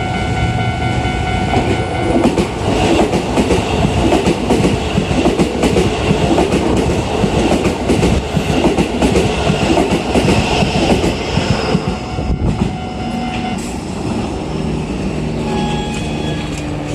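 Keisei 3100-series train passing over a level crossing, its wheels clattering rhythmically for about ten seconds with a faint high whine over it. The crossing alarm is ringing at the start, and the clatter eases off about twelve seconds in.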